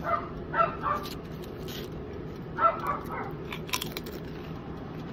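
A dog barking in short yaps, a few near the start and a few more about two and a half seconds in. Between them a wavy Pringles potato chip is crunched in the mouth, sharp crackly bites about three and a half seconds in. A steady low hum runs underneath.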